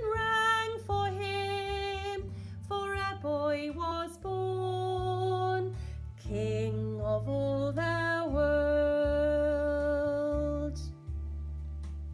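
Woman singing the closing lines of a Christmas song over an instrumental accompaniment, ending on a long held note. Her voice stops shortly before the end, leaving the accompaniment playing alone.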